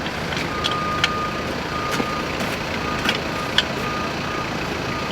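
A vehicle's reversing alarm beeping about once a second over steady engine and street noise. A few sharp metallic clanks come through about a second in and again past three seconds in.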